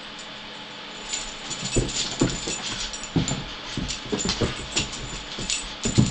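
Siberian husky puppy playing roughly with a Kong Wubba toy, starting about a second in: an irregular run of thumps and rustles from the toy and paws on carpet, with the puppy's own small vocal noises among them.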